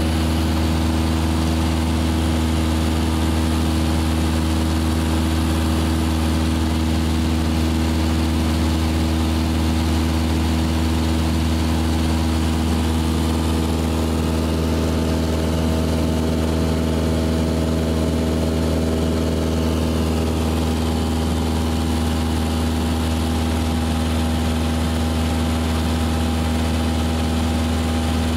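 Single-engine Cessna's piston engine and propeller running steadily in level flight, heard from inside the cabin as an even, unchanging drone.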